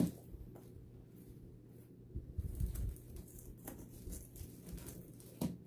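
Faint handling sounds of a flower stem being worked into a wreath: light rustles and a few soft clicks, with a dull low bump near the middle.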